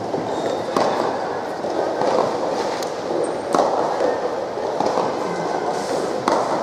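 Three sharp knocks, each ringing briefly in a large indoor sports hall, over a steady murmur of background voices.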